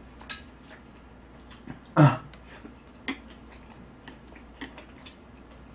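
A few sharp clicks of chopsticks against dishes, with one short, loud vocal noise from the eater, like a grunt or throat sound, about two seconds in.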